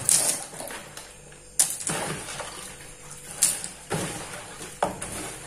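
Tengkuyung snails being drained in a basin: about four sharp clacks of shells knocking against each other and the container, with faint sloshing water between them.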